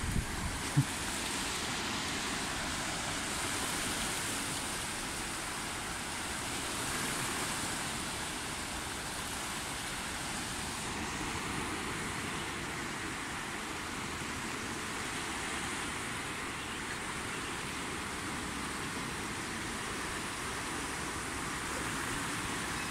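Steady rushing of a flood-swollen stream, the Nala Lai's fast muddy water running high. A single short knock sounds about a second in.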